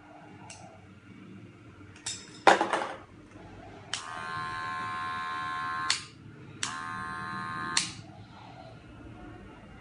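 Wahl 5 Star Senior cordless hair clipper switched on and running with a steady buzzing hum for about two seconds, switched off, then run again for just over a second. A few sharp clicks and knocks of handling come a little before it starts.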